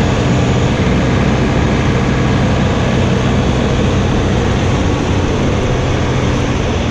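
Compact tractor's diesel engine running steadily under load while its front-mounted snowblower spins and throws snow, a constant drone with a steady low hum.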